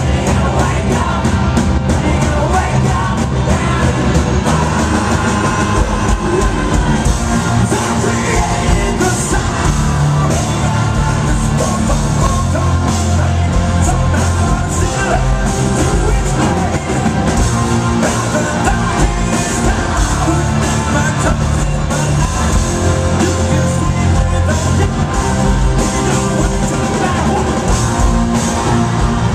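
Live hard rock band playing loud, with singing and yelled vocals over distorted guitars, bass and pounding drums.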